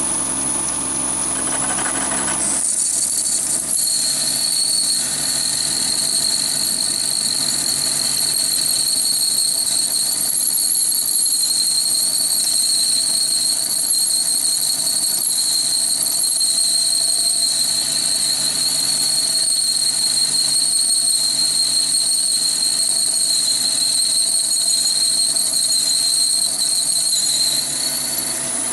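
Chinese mini lathe running while a large-diameter HSS twist drill cuts into a hardened steel bar. About two and a half seconds in, the cut sets up a steady high-pitched squeal that holds until near the end.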